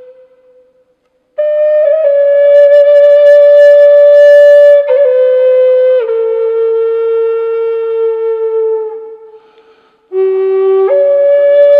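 Gary Kuhl Spirit Bird Native American style flute in G4, of figured maple with an African blackwood mouthpiece, playing a slow melody of long held notes. After a short silence the notes step downward and fade out about nine seconds in. A low note then leaps back up near the end.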